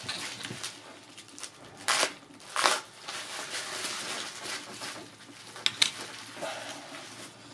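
Plastic bubble wrap crinkling and rustling as a belt buckle is unwrapped, in two short bursts about two and two and a half seconds in. Just before six seconds, two sharp clicks as the metal buckle is set down on the tabletop.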